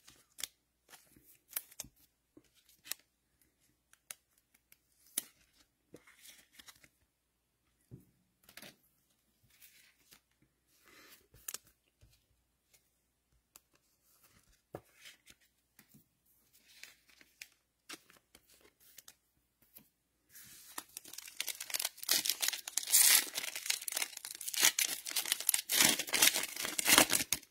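Trading-card pack's shiny foil wrapper being torn open and crinkled. It starts about two-thirds of the way in with a loud run of tearing and crackling, after faint scattered clicks and rustles of cards being handled.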